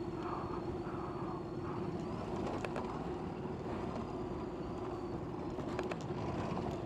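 Ducati DesertX motorcycle's V-twin engine running at steady revs while riding a dirt trail, with a few scattered small clicks.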